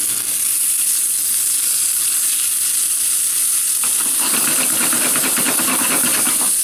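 Two rump steaks sizzling in a non-stick frying pan over a gas burner, still blue inside. About four seconds in, the pan is shaken on the burner grate, a rapid rattling scrape that lasts about two and a half seconds over the sizzle.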